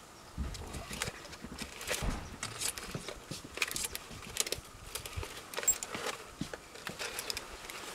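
A hedgehog clambering over and nosing in a plastic tub of loose metal screws and nuts: irregular clicks, scrapes and small metallic rattles.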